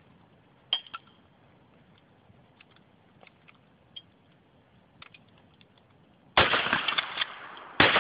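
A few faint clicks, then two loud shotgun blasts about a second and a half apart near the end, each followed by a clatter of breaking glass and debris from the television being shot.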